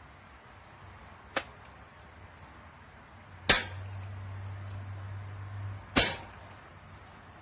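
Hammer striking a 1/2-inch manual impact driver: a light tap, then two loud metallic blows about two and a half seconds apart, each with a brief high ring.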